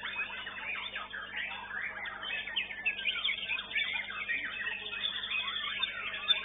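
Many caged songbirds singing at once in a dense, continuous chorus of overlapping chirps, whistles and fast warbled phrases, over a faint steady hum.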